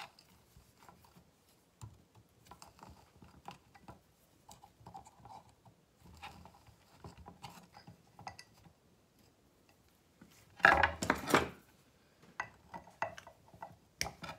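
Small metal clicks and scrapes of pliers twisting bonsai anchoring wire tight against a ceramic pot, with light taps of tool on pot. A louder burst of clattering comes about eleven seconds in.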